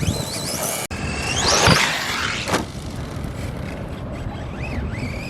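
ARRMA Senton 3S RC truck's brushless electric motor whining and rising in pitch as the truck speeds up, about three times, over a steady noisy background.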